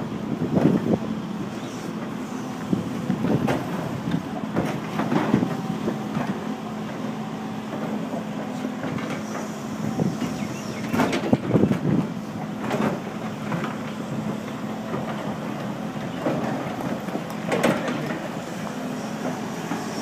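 Sumitomo tracked excavator's diesel engine running steadily, with irregular sharp clanks and knocks of the bucket against rocks and rubble as it digs.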